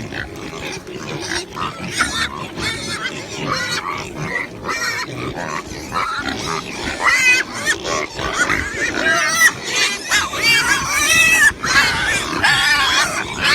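A group of pigs squealing and grunting, many short high calls overlapping, growing denser and louder in the second half.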